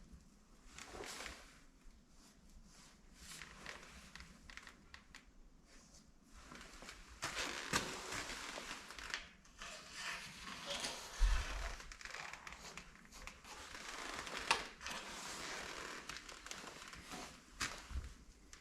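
Rustling and crinkling of material being handled and worked during a seat repair, quiet at first and busier from about seven seconds in, with a single knock about eleven seconds in.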